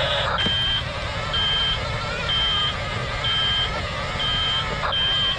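Double E E579 RC bulldozer's reversing alarm beeping about once a second, six beeps, over the steady whine of its electric drive motors and gearbox.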